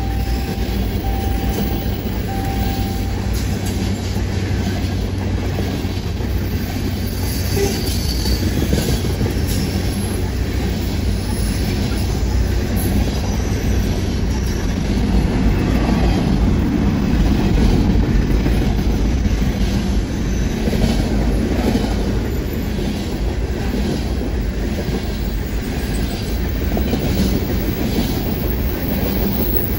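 Freight train cars (tank cars, then covered hoppers) rolling past at close range: a steady wheel-and-rail rumble with regular clicks of wheels over the rail joints.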